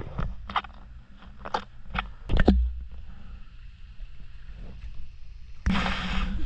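Hollow knocks and clunks on a clear plastic kayak hull as it is handled in shallow water, about seven irregular strikes in the first two and a half seconds, the loudest with a low thud. After a quieter stretch, a sudden burst of rushing noise comes in near the end.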